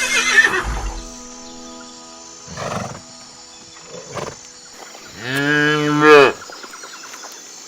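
A large farm animal calling: one long, loud call about five seconds in that rises and then falls in pitch, after a short noisy burst at the start and a couple of softer sounds in between.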